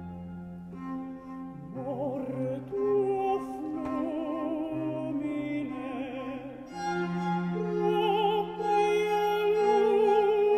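Countertenor singing long held notes with wide vibrato over a string quartet of two violins, viola and cello. The strings play alone at first, and the voice comes in about two seconds in.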